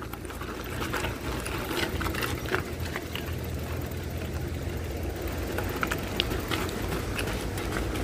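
Motorcycle engine running steadily at low speed on a rough dirt track, with scattered clicks and rattles from the bumpy ground.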